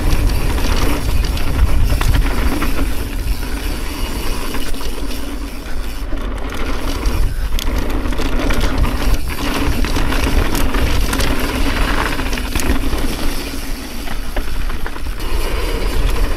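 Mountain bike rolling fast down a dirt flow trail: tyre noise and rattling knocks from the bike, under a constant low rush of wind on the action camera's microphone.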